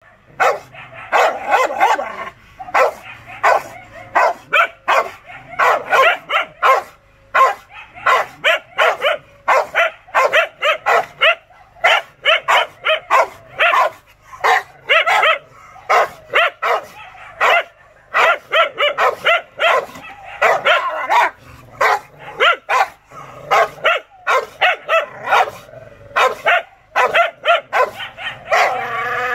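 Rottweiler barking aggressively in fast runs of loud barks, about two or three a second, with short pauses between runs.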